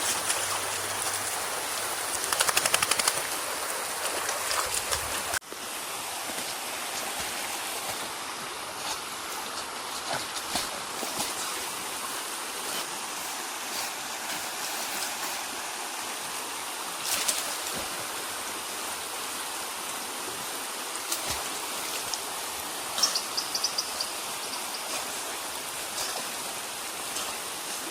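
A creek's running water, a steady rushing, with a few short sharp noises on top, the loudest cluster about three seconds in.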